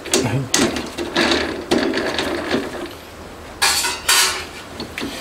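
Chuck key being turned in a lathe's four-jaw chuck to tighten the jaws: a run of metallic clicks and knocks, then two short scraping sounds near the end.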